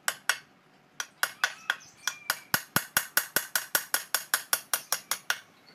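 Hammer blows on metal Vespa engine parts being dismantled: two strikes, then a quick, even run of about twenty strikes at roughly five a second, each with a short metallic ring.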